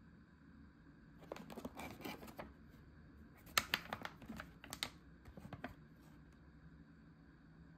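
Plastic food packaging being handled: two bouts of crinkling and sharp clicking, the loudest snaps in the middle.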